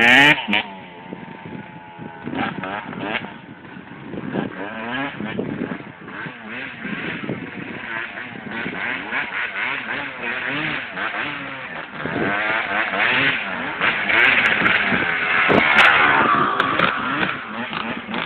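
Motocross bike engine revving up and down through the gears as it rides the muddy track, getting louder around two thirds of the way through.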